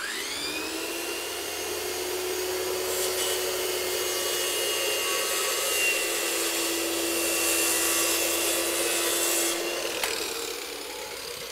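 Handheld circular saw starting up with a rising whine, then running steadily while crosscutting a wooden board to length. The motor is switched off about ten seconds in and winds down.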